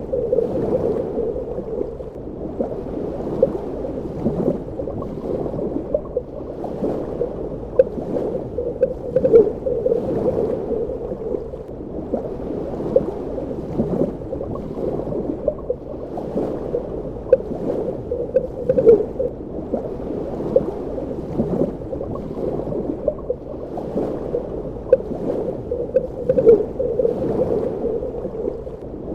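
Underwater ambience: a steady, muffled rush of water with frequent small bubbling gurgles and pops at irregular intervals.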